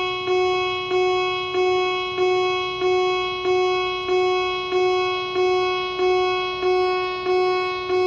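Electronic alarm tone pulsing at a steady pitch, about one and a half pulses a second; each pulse starts sharply and then fades.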